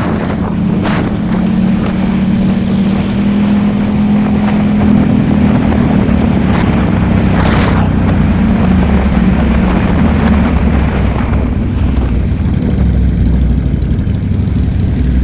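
ATV engine running under way on a trail, with wind noise on the microphone. The engine note holds steady, then drops a little about halfway through as the machine slows.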